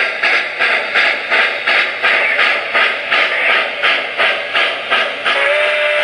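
Steam locomotive exhaust chuffing in an even rhythm, about three beats a second. About five seconds in the beats give way to a steady held tone with overtones.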